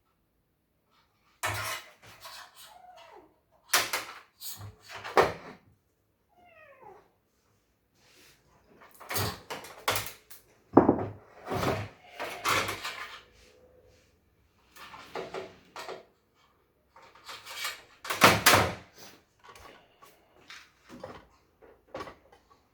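Irregular knocks, clatter and scraping of hard parts being handled and set down, with a short squeak about six seconds in.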